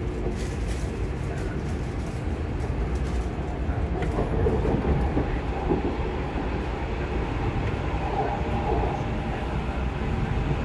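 Running noise heard inside a Cologne Stadtbahn light-rail car as it travels along the track: a steady low rumble with a few light clicks.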